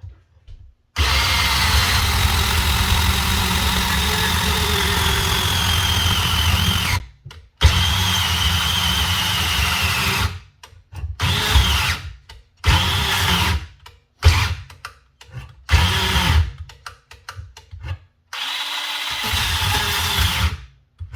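DeWalt DCS370 18-volt cordless bandsaw cutting schedule 40 pipe: one long run with a blade whine, a shorter run, then a string of brief starts and stops before a last run near the end. The battery is giving out, and the cut is left not quite finished.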